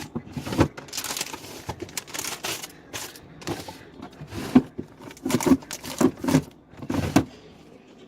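Rustling and knocking of food packaging and containers being handled in a fridge: a string of short crinkles and knocks that stops about seven seconds in.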